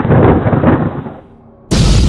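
A cartoon sound-effect rumble dies away, then a sudden loud explosion boom hits near the end and carries on ringing.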